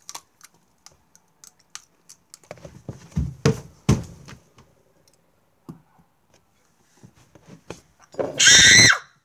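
A girl's loud, high shriek lasting under a second near the end, reacting to the burn of a hot green chilli she has just bitten into. Before it come a few heavy thumps and bumps about three to four seconds in, and scattered small clicks.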